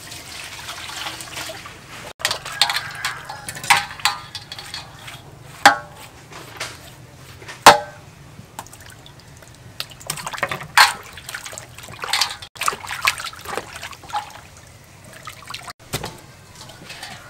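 Water poured from a plastic scoop over raw beef in a stainless steel bowl, then sloshing and splashing as the meat is washed, with sharp splashes and knocks against the bowl, the loudest a few seconds apart in the middle.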